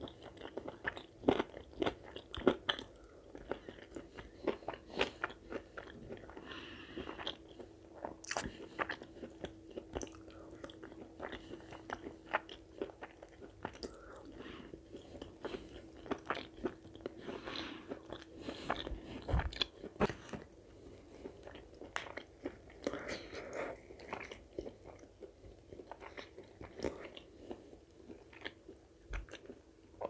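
Close-miked eating of chicken curry with puri: steady chewing and biting, full of frequent sharp wet mouth clicks and small crunches. A faint steady hum runs underneath.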